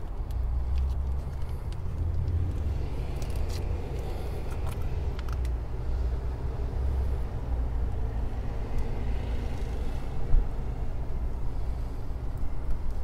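Steady low rumble, with a few light clicks about four to five seconds in and a single brief knock about ten seconds in.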